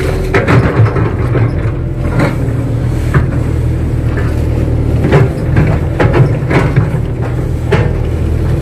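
Kato crawler excavator's diesel engine running steadily under work, with a scatter of short knocks and clanks from the machine as it digs.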